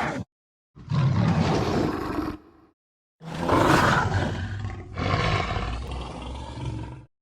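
Made-up kaiju roar sound effects: the end of one roar just at the start, then a roar of about two seconds, then a longer one of about four seconds that fades as it goes, each cut off sharply into dead silence.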